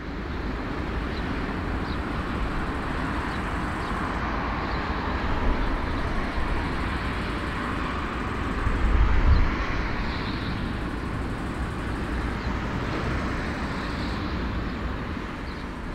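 Jet engines of a taxiing Airbus A340-300, its four CFM56 engines near idle, heard across the airfield as a steady rumble and hiss that swells briefly about nine seconds in.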